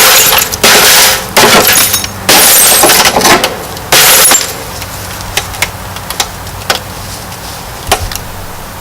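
TV screen glass being smashed in four loud crashes over the first few seconds, followed by scattered small clinks of falling shards.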